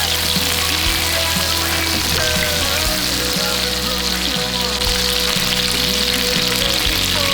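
Food sizzling as it fries in oil in a pan, a steady hiss, with background music over it.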